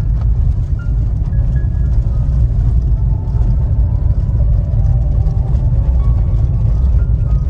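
Steady low road and engine rumble inside a moving car's cabin, with a song playing faintly from the car stereo underneath.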